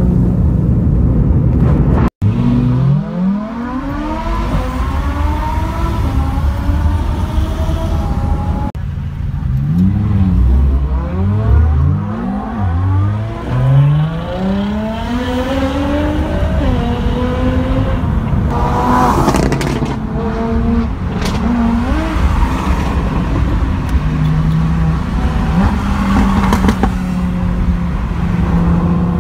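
Supercar engines revving hard and accelerating, their pitch climbing and falling back again and again as they shift through the gears, heard from a car following close behind.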